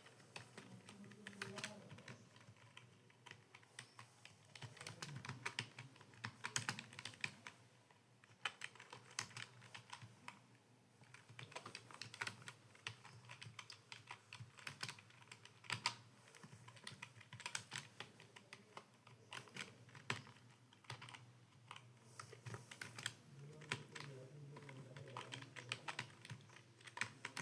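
Fast typing on a computer keyboard: rapid key clicks in irregular runs with brief pauses, during Hindi typing practice.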